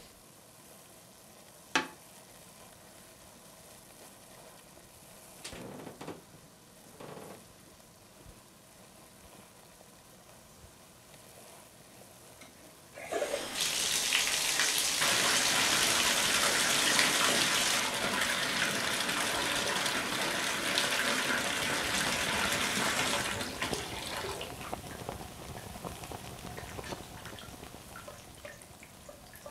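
Bathtub tap turned on about halfway in, water running hard into the tub for around ten seconds, then a softer, steady run. Before it, quiet with a single sharp click.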